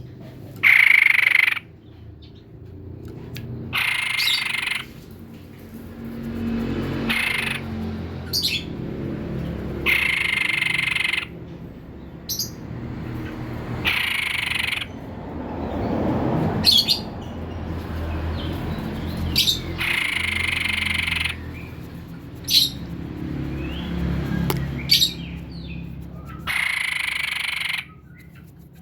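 White-breasted babbler (tepus dada putih) singing steadily. It gives about a second-long phrases every few seconds, with short sharp notes in between.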